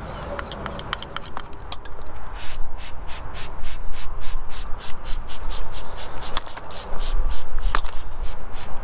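Brisk rhythmic scrubbing strokes, about three a second, after a couple of seconds of small scattered clicks of parts being handled: gum being scrubbed out of the bottom of a carburetor.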